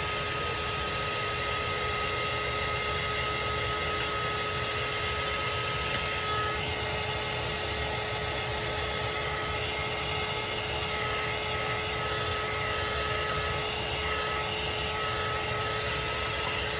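Small handheld heat tool blowing steadily with a constant whine, drying freshly squeegeed chalk paste on a sign board so the next transfer won't smear it. It shuts off at the very end.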